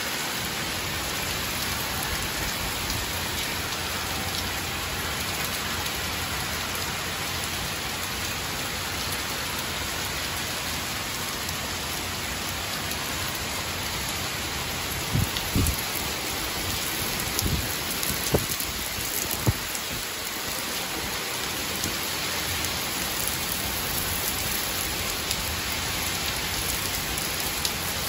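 Torrential rain pouring down in a steady, dense hiss. A few brief low thumps come about halfway through.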